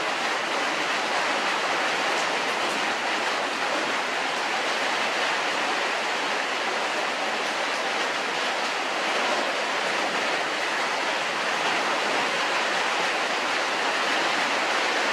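A steady, even rushing hiss that holds at the same level throughout, with no rhythm or breaks.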